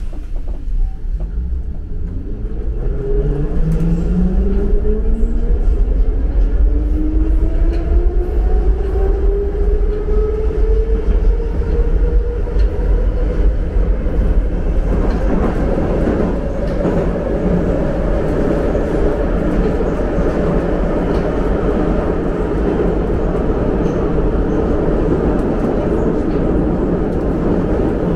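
Metro train pulling away, heard from inside the car: the electric traction motors' whine climbs steadily in pitch for about the first fourteen seconds as the train accelerates, then the car runs on at speed with a steady loud rumble and rattle.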